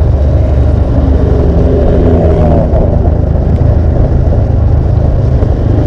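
Motorcycle engine running under light throttle while riding, heard as a loud, steady low rumble with a faint engine tone over it.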